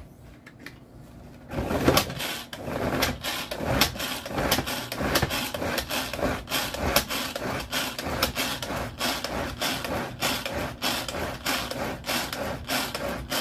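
Tupperware pull-cord chopper worked over and over, each pull a rasping zip of the cord and whirl of the blades, about two a second. It is chopping strawberries and whipping cream into a thick dessert. It starts about a second and a half in.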